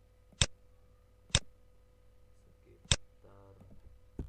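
Three sharp single clicks, about a second or more apart, from computer input while working on a PC, over a faint steady hum.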